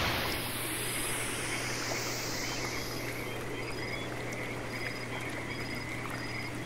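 Outdoor background ambience: a steady hiss and a low hum, with short high chirps repeating about twice a second from about halfway through.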